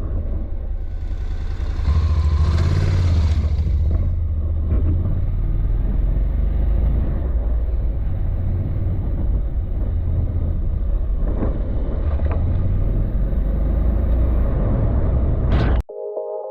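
Motorcycle running on the move, a steady low engine rumble mixed with wind noise on the microphone that swells briefly a few seconds in. It cuts off abruptly near the end as electronic music starts.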